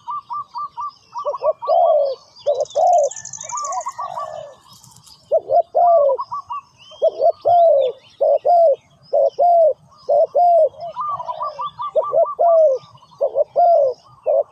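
Spotted doves cooing: quick runs of short notes, interspersed with repeated lower coos that rise and fall, calling steadily with only brief pauses.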